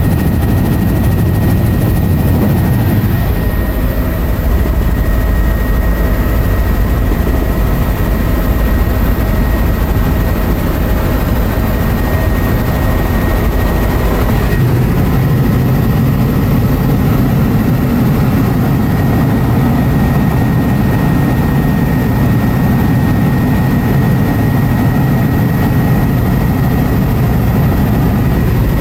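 Helicopter in flight heard from inside the cabin: loud, steady rotor and engine noise with a thin high whine held constant over it.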